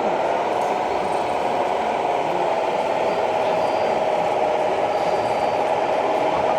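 Steady whine of a radio-controlled model truck's electric drive, one held tone wavering slightly in pitch, over a constant noisy background.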